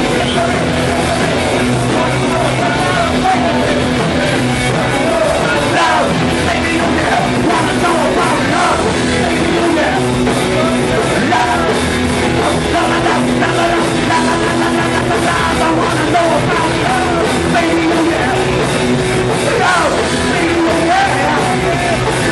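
Live punk rock band playing loud, with singing over electric guitars.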